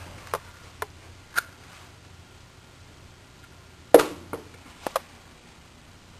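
A few light clicks and taps, with one sharper knock about four seconds in and a few more clicks after it, over a faint low room hum.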